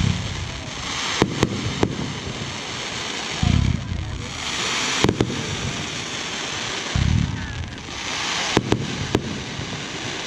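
Fireworks display: deep booms of shells bursting about every three and a half seconds, with sharp bangs and a steady crackle between them.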